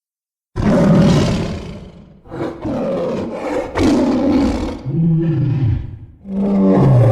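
A monster's roars and growls from a creature sound-effect set: about five separate rough roars in a row, the first starting half a second in, several ending in a low falling growl.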